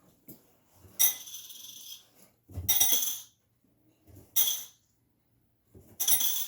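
Coins, quarters, dropped one after another into a homemade toy vending machine, each clinking and rattling for under a second; four drops in all.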